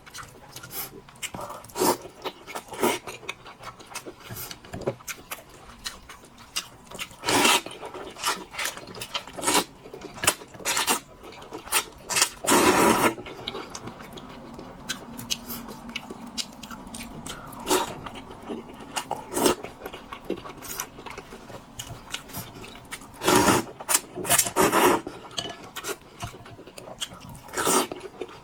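Close-miked eating sounds: crunchy chewing and bites at an irregular pace, with several louder crunches.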